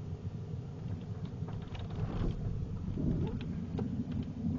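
Truck engine and cab rumbling at low speed, with mesquite branches scraping and snapping against the truck's body several times from about a second and a half in.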